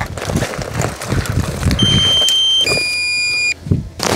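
Low-battery warning alarm from a DJI Mini 2 drone's remote controller: a higher electronic tone held under a second, then a lower one, over the rustling and rumbling of someone handling gear and pushing through grass.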